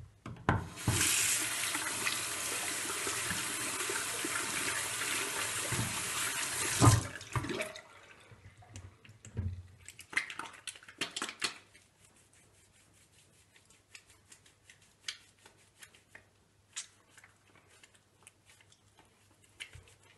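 Water running from a single-lever mixer tap into a washbasin over wetted hands for about six seconds, then the tap turned off with a knock. After that, faint wet squishing of soapy hands lathering.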